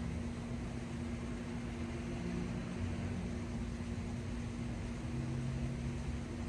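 A steady mechanical hum, one constant tone over a low, uneven rumble.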